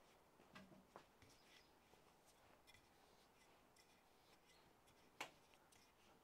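Near silence, with faint scattered clicks and scrapes from a hand brace turning an auger bit into fresh green wood, and one sharper click about five seconds in.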